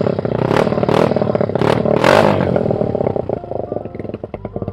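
Yamaha Raptor 250 ATV's single-cylinder four-stroke engine, its valve seals newly replaced, revved in about four quick throttle blips, then dropping back to idle about three seconds in.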